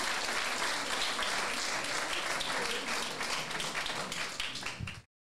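Audience applauding, the dense clapping thinning to scattered separate claps after about four seconds and cutting off abruptly just before the end.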